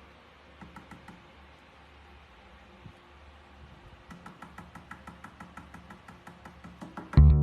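A run of light, quick taps or clicks, about five a second, after a few scattered clicks earlier on. Loud swing-style music starts just before the end.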